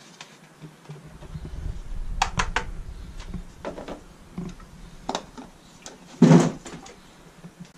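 Clicks, knocks and rustling from hands working in an engine bay, setting a plastic funnel into the oil filler neck and handling a can of engine flush, with a low rumble early on and one louder noise lasting about a third of a second, about six seconds in.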